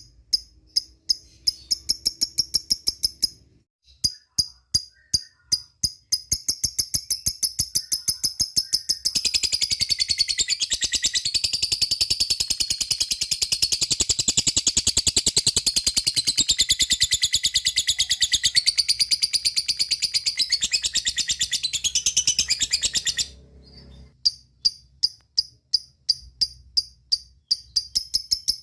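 Lovebird calling: sharp, high ticking chirps about four a second, building into a long, fast, continuous chattering trill (the 'ngekek') that runs for about fourteen seconds and cuts off suddenly, after which the separate ticking chirps resume.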